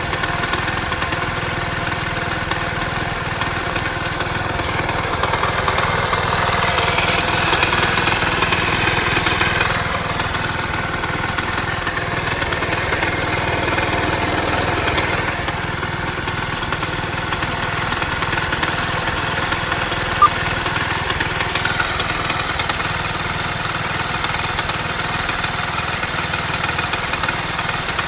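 Engine idling with a knock from inside it, which the owner cannot identify. The running swells for a few seconds about a quarter of the way in, and there is one brief sharp sound about twenty seconds in.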